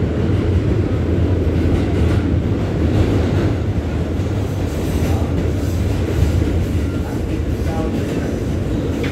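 New York City subway train (L line) running at speed, heard from inside the car by the door: a loud, steady rumble of the wheels on the track.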